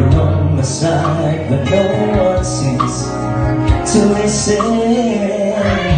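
A man singing into a microphone over amplified backing music with a steady beat, his voice carried through the venue's speakers.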